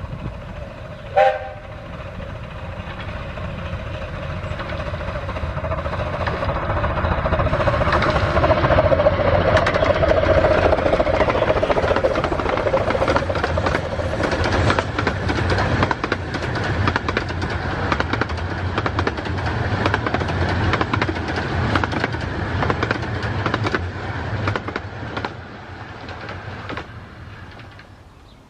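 A 15-inch gauge steam train gives a short whistle toot about a second in. It then approaches and passes at speed, growing to its loudest around 8 to 12 seconds in, with a rapid clatter of wheels over rail joints, and dies away near the end.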